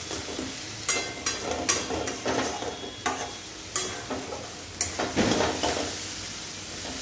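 Metal spatula scraping and knocking against a metal kadai, stirring a thick onion-tomato masala as it fries over a steady sizzle. The scraping stops about six seconds in, leaving the sizzle alone.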